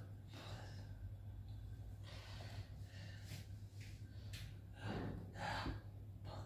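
A man breathing audibly close to the microphone, with a louder breath about five seconds in, over a steady low hum.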